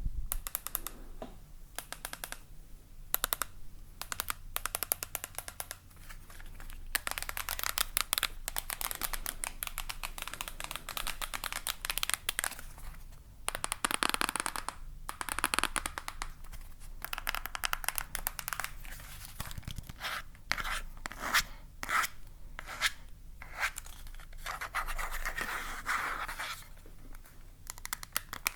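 Close-miked scratching and scraping on an object by hand: irregular runs of quick scratches and clicks, with longer rasping strokes in between.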